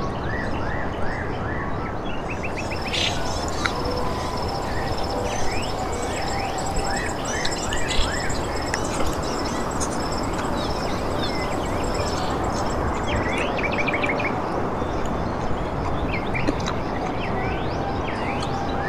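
Wild birds chirping and calling, many short rising and falling notes and quick repeated chips, over a steady rushing background noise.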